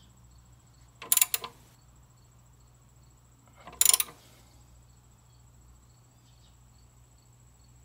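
Two short bursts of sharp clattering knocks of parts being handled: a quick run of several about a second in, and another at about four seconds. A steady low hum and a faint high whine run underneath.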